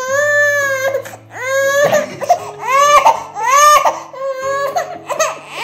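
Baby crying hard in a string of loud wails, each rising in pitch and then breaking off, about five in all: the infant is upset by the dog close to her face.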